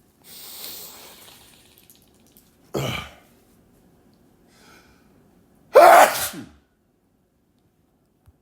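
A person sneezing twice, about three seconds apart, the second sneeze louder and voiced. A long hissing breath comes before the first.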